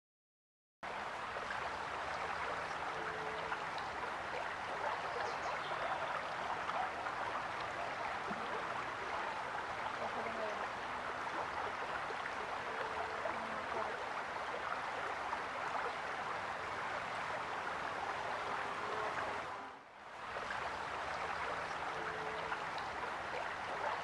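Steady rushing of flowing water, like a stream, with a few short faint bird calls over it. It starts abruptly about a second in and dips briefly near the end.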